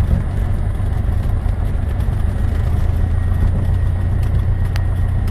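Single-engine light aircraft's engine and propeller running at low power, heard from inside the cockpit as it taxis: a steady low drone. A single sharp click sounds near the end.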